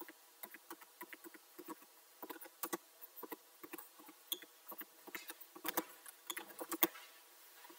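Typing on a computer keyboard: irregular, quiet key clicks, a few a second, with a cluster of louder strokes near the end.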